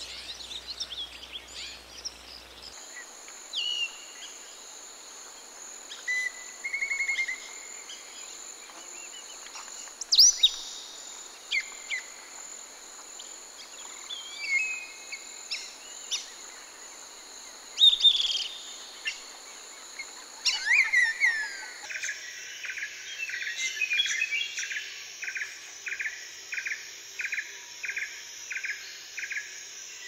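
Forest ambience: assorted birds calling with short, sharp whistles and chirps over a steady high-pitched insect drone. In the last third, one bird repeats a short call about twice a second.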